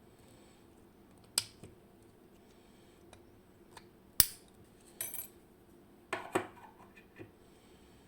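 Small metal lock parts and tools clicking and clinking as a WinkHaus KeyTec N-Tra dimple lock cylinder is taken apart. There are scattered single clacks, the loudest about four seconds in, and a few quick clusters of clinks later on.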